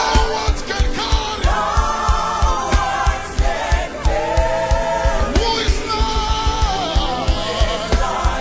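Gospel worship music: sung voices holding long notes over a band with a steady low beat.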